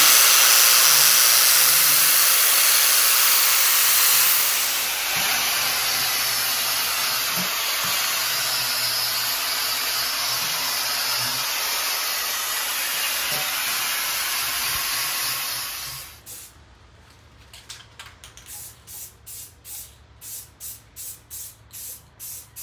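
Electric angle grinder grinding a steel motorcycle frame, a steady hiss that eases slightly about four seconds in and stops at about sixteen seconds. Near the end, short bursts of spray paint from an aerosol can, about two a second.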